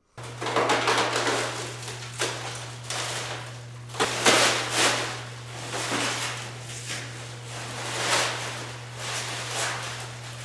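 Irregular rustling, scraping and knocking of packing material being handled and pulled apart, over a steady low electrical hum.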